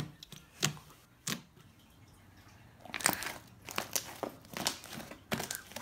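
A large lump of fluffy PVA-glue-and-borax slime being kneaded and pressed by hand, giving sticky squelching clicks and crackles, a few at first, then thicker and faster from about three seconds in.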